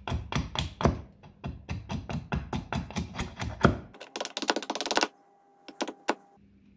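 A Gränsfors Bruk splitting axe chopping into a block of wood in quick, short strokes, about four a second, shaving it down to a marked line. About four seconds in, the strokes give way to a denser, faster clatter for about a second, then a few light knocks.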